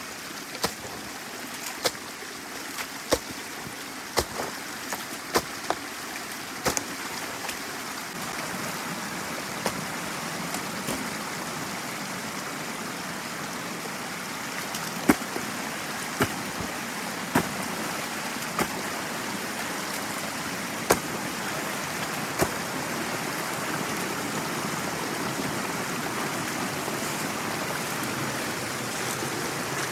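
Water running through a breached beaver dam in a drainage canal, a steady rush that grows a little louder partway through. Irregular sharp clicks cut through it, about one a second at first and fewer later.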